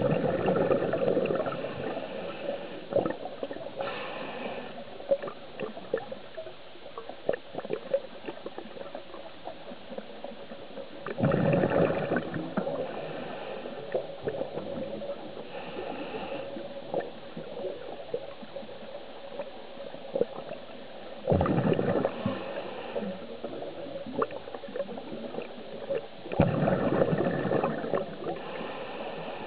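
Scuba regulator breathing heard underwater: four loud bubbling exhalations spaced five to ten seconds apart, with softer hissing inhalations between them. Faint clicks and crackles run throughout.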